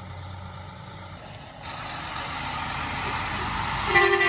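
Heavy truck passing close, its engine and tyre noise building as it approaches, with a short horn toot near the end.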